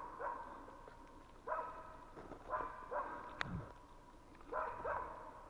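West Siberian laika hunting dogs barking, not close, in short runs of barks about every second, with the barks trailing off in a ringing echo between them. Near the middle there is a single sharp click.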